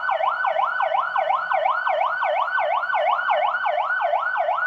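Electronic police siren in a fast yelp, its pitch sweeping up and down about three times a second without a break.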